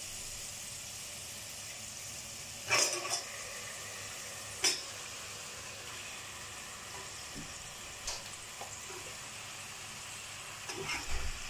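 Sliced onions and curry leaves sizzling steadily in hot coconut oil in a pot, with a few short knocks of a utensil against the pot, the sharpest about three and five seconds in.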